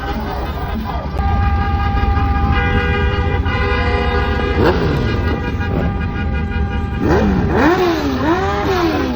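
Car horns honking in long, overlapping held blasts over a steady rumble of traffic. Near the end a wavering wail rises and falls several times.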